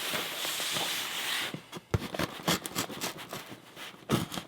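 A blade slicing through the tape and cardboard along the side of a shipping box, a steady scraping hiss for about a second and a half. Scattered short scrapes and taps follow as the cardboard is handled.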